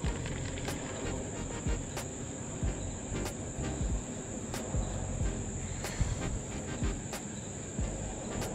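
Steady high-pitched insect buzz, like crickets, over the low whir and faint regular ticks of a baitcasting reel being cranked through a retrieve.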